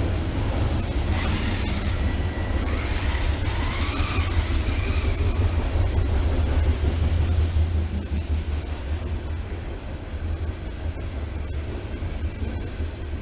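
Off-road RC car running, its electric motor whining up and down in pitch about three to five seconds in, over a heavy low rumble and tyre noise. The sound eases off somewhat after about eight seconds.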